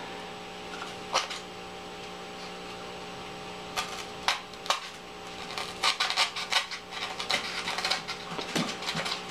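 Craft knife cutting and scraping foam board in short, scratchy strokes, starting about four seconds in and coming faster toward the end, over a steady low hum.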